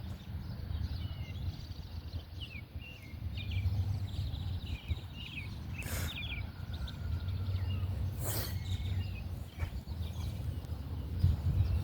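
Outdoor garden ambience: a steady low rumble on the microphone with small birds chirping in short calls throughout, and two brief rustling noises about six and eight seconds in.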